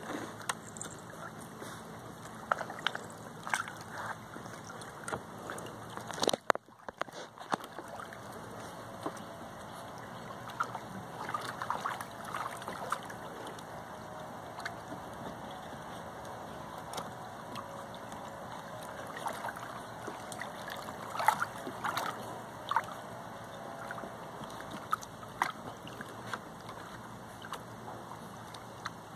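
Labradoodle puppies wading and playing in a shallow plastic kiddie pool: water sloshing, with many small, irregular splashes.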